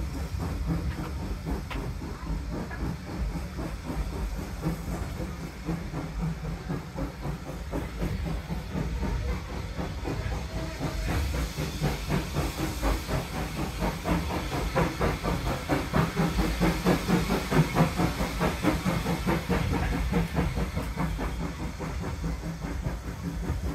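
Steam locomotive working on the line, its exhaust beats coming in a steady, regular rhythm over a continuous hiss, growing louder toward the middle and then fading.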